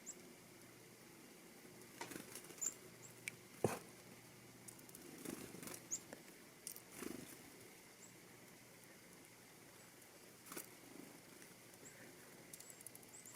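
Black-capped chickadees making faint, short, high chirps a few times, with scattered light taps and rustles.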